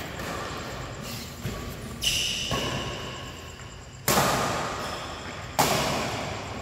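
Badminton rackets striking the shuttlecock in a doubles rally: three sharp hits, about two, four and five and a half seconds in, each echoing and fading in the hall. A brief high squeak follows the first hit.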